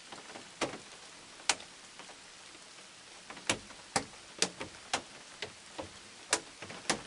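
Large raindrops tapping irregularly on a hard surface close to the microphone, about ten sharp ticks bunched in the second half, over a faint steady patter of rain.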